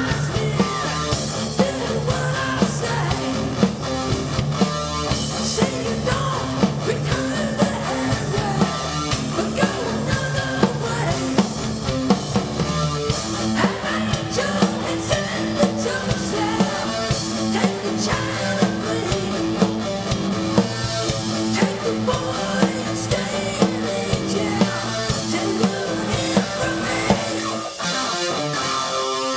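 Rock band playing a song: drum kit keeping a steady beat under electric guitars. Near the end the drums drop out and a sustained chord rings on.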